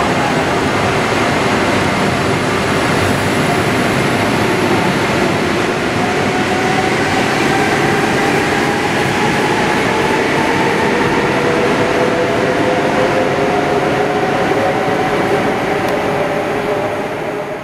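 SJ intercity electric multiple unit pulling out of an underground station: its traction motors whine, rising in pitch as it accelerates, over the steady rumble of wheels on the rails.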